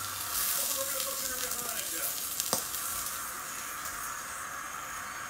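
Hot cooking oil sizzling in a frying pan, a steady hiss, with a sharp click about two and a half seconds in.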